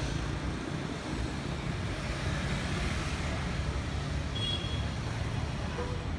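City street traffic: a steady rumble of passing cars and motorbikes, with a couple of brief beeps near the end.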